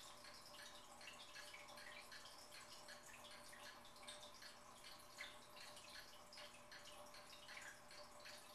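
Fish tank water trickling and dripping in a dense, irregular patter of small splashes, faint, over a steady hum.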